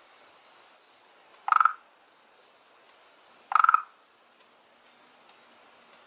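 A frog calling: two short, pulsed croaks about two seconds apart, each under half a second long.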